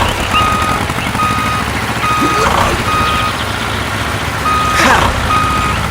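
Vehicle reversing alarm beeping steadily, about one beep a second, over the low rumble of a running engine, with a few brief sweeping sounds mixed in.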